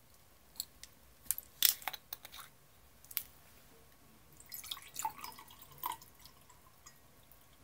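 Plastic water bottle's cap twisted open, with several sharp clicks and crackles of the plastic. From about four and a half seconds in, water pours from the bottle into a glass in a short run of trickling, gurgling sounds.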